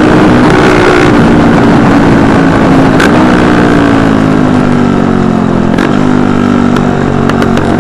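Motorcycle engine running under way with wind rush, its pitch sagging slowly for several seconds, then climbing again about six seconds in. A single sharp click about three seconds in.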